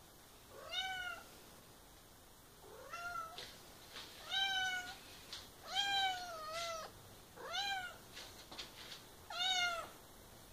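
Tabby cat meowing about six times in a row, each meow rising then falling in pitch, one near the middle drawn out longer than the rest. The cat is calling for the faucet to be turned on so she can drink, as her owner reads it.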